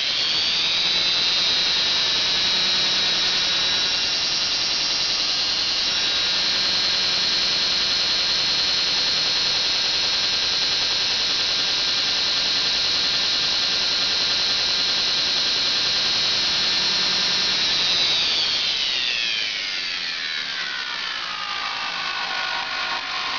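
Zoomie Products Model 66 2x72 belt grinder running its abrasive belt on a 1 HP motor under variable-speed drive. Its whine rises steeply as the speed is turned up in the first second, holds high and steady, then slides down about 18 seconds in as the belt is slowed, settling at a lower pitch.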